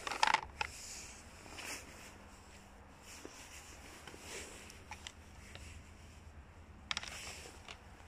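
A plastic hubcap being handled and turned over: light clicks, taps and scraping rustles, in a cluster at the start, a few scattered ones, and another cluster about seven seconds in.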